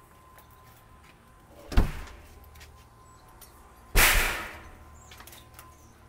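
Two door thumps about two seconds apart, the second a louder bang that dies away over about a second: a house door being opened and shut.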